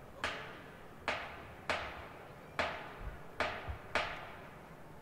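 Seven separate drum strikes at an uneven pace, each ringing out briefly with an echo.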